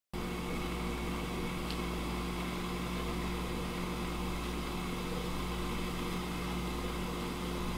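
A steady, even mechanical hum with a few constant low tones, like an electric appliance running.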